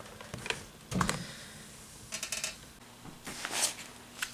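Scattered handling noises of a person working with fabric and sewing things: a knock about a second in, then brief rattles and rustles.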